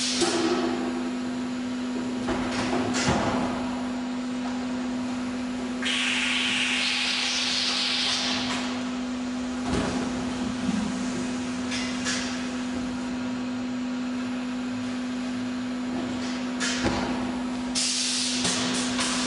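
CODI-6004 automatic oil filling machine running while it fills a row of plastic jugs: a steady hum, a hissing burst about six seconds in and another near the end, and a few sharp knocks.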